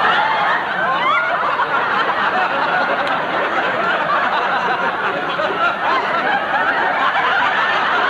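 Studio audience laughing loudly and without a break, many voices at once.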